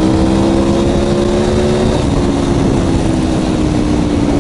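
Aprilia Tuono V4 1100 Factory's V4 engine running through an aftermarket Arrow exhaust under acceleration, its pitch rising. About two seconds in the throttle eases and the pitch slowly falls. Wind rushes over the helmet microphone throughout.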